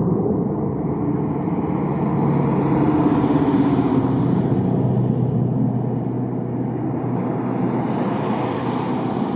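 Jet roar from F-22 Raptor fighters, powered by twin Pratt & Whitney F119 turbofans, flying overhead. A steady, loud rumble whose hiss swells about three seconds in and again near the end.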